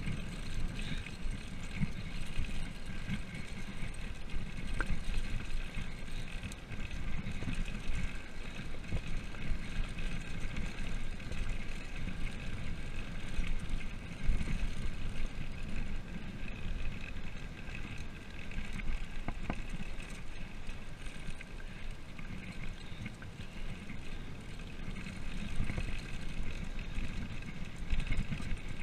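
Wind buffeting the camera microphone on a downhill mountain-bike ride, with a fluttering low rumble and a steady hiss of the bike rolling over the road.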